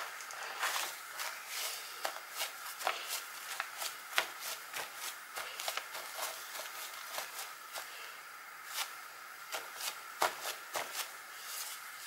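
Crumpled paper towel dabbed and rubbed over a wet painted paper page to blot it dry: a run of soft, irregular taps and rustles, a few a second.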